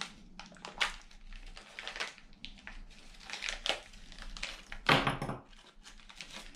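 A small plastic parts bag crinkling and rustling as it is handled and opened and small steel drive shafts are taken out, with a louder rustle about five seconds in.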